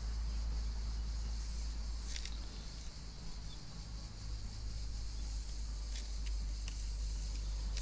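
Outdoor ambience: a steady high insect drone over a low steady rumble, with a couple of sharp clicks about two and six seconds in.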